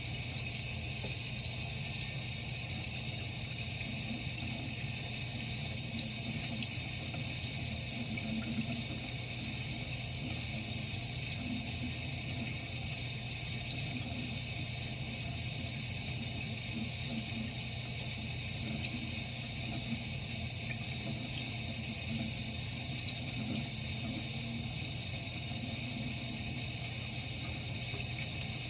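Sink tap running in a steady stream while the water is left to warm up.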